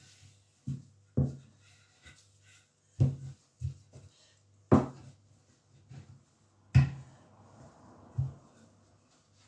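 Wooden rolling pin rolling out dough on a wooden pastry board: a string of dull knocks a second or two apart as the pin is set down and pushed, with a soft rolling rush after one of the knocks. A faint steady low hum runs underneath.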